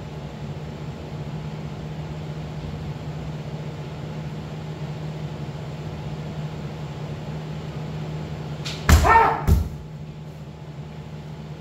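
Kendo strike about nine seconds in: a loud shouted kiai together with sharp cracks of bamboo shinai hitting armour, a second crack about half a second later. A steady low hum runs under the rest.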